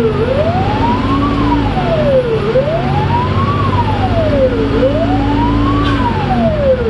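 Fire engine's wail siren sweeping up and down in pitch, about one rise-and-fall every two and a half seconds, three cycles in all. It is heard from inside the cab over a steady engine drone and road rumble.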